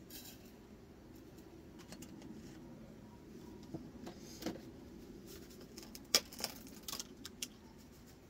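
Wood fire crackling: scattered sharp pops and clicks over a low steady background, with a cluster of louder pops about six to seven and a half seconds in.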